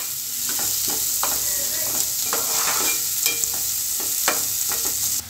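Chopped onions and green chillies sizzling as they fry in oil in a metal pan, stirred with a metal spoon that scrapes and clicks against the pan about once a second. The sizzle drops abruptly just before the end.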